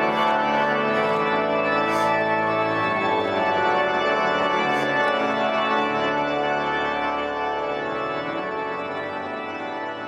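Church organ playing slow, held chords that grow quieter over the last few seconds.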